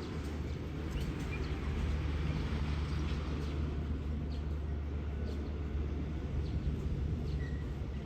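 Railway station ambience: a steady low hum from a train or trackside equipment, with a few short bird chirps.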